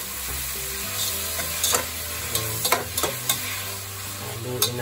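A metal utensil stirring sautéing onions, pork knuckle and freshly added tomatoes in a pot, over a steady sizzle. The utensil clicks sharply against the pot four or five times.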